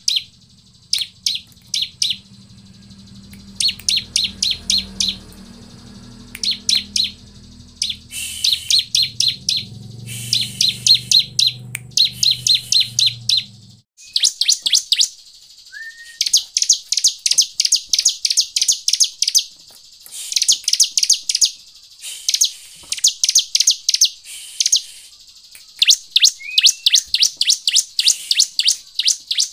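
Bar-winged prinia (ciblek) calling: short bursts of sharp, high, rapidly repeated chip notes, many bursts one after another, louder and more tightly packed in the second half.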